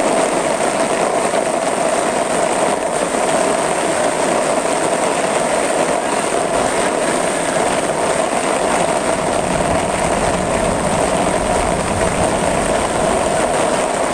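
Muddy floodwater rushing through a street as a steady, loud torrent.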